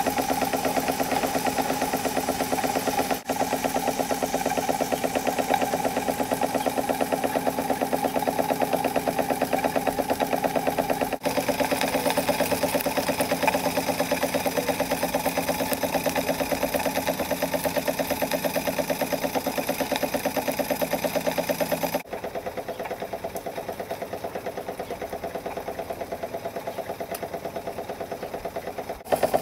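Handmade model saddle steam engine, freshly overhauled, running at a fast, even beat. The sound breaks off and resumes a few times and is quieter from about two-thirds of the way through.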